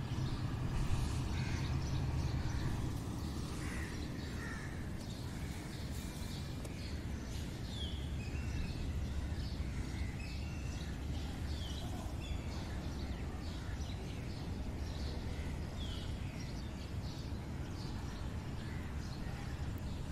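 Birds chirping and calling on and off over a steady low background rumble.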